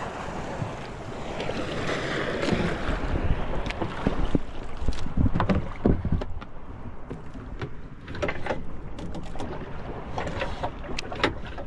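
Small boat on a choppy sea: water splashing and slapping against the hull in uneven bursts, with wind buffeting the microphone.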